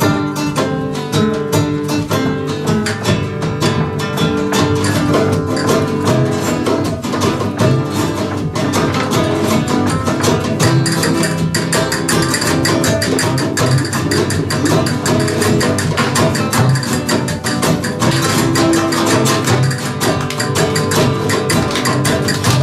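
Flamenco-style music played live on two acoustic guitars with a hand drum. The strumming and percussion grow denser and more driving about eight seconds in.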